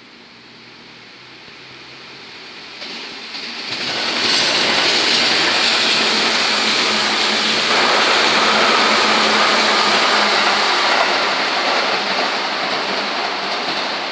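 Seibu 10000-series Red Arrow electric limited express train passing at speed. Wheel and rail noise builds as it approaches, stays loud for about eight seconds as the cars go by, and eases off near the end as it moves away.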